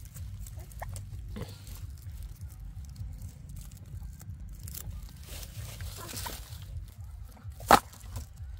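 Sugarcane stalks being bundled by hand with plastic string: soft rustling and small clicks of cane and string. Near the end comes a single sharp knock as the cane is set into a woven bamboo basket.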